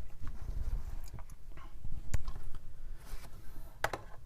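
Handling sounds as a small metal keychain flashlight is set on a scale to be weighed: a sharp click or tap about halfway through and two more close together near the end, over low handling rumble.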